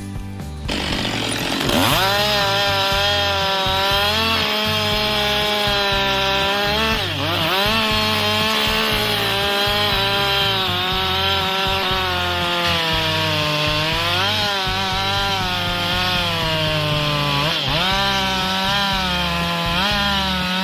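Chainsaw revving up about two seconds in and cutting into wood. Its engine pitch sags and recovers several times as the chain bites into the cut.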